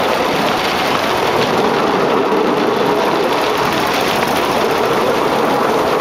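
Bamboo train (norry) under way: its small 6-horsepower gasoline engine running steadily, belt-driving the rear axle, with the wheels running along the rails.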